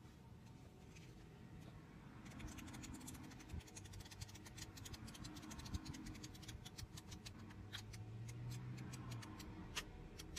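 Paper pages of a hand-held flip book riffling off the thumb: a quiet run of rapid, irregular paper clicks starting about two seconds in.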